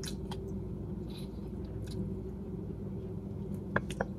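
A person chewing salt-cured chicken: soft, wet mouth sounds and small clicks over a steady low hum, with two sharper clicks near the end.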